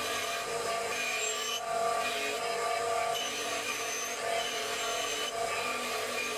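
Bench grinder running steadily while a forged steel axe head is pressed against the spinning wheel, giving a rasping grind that swells and eases in uneven passes as the head is moved across it.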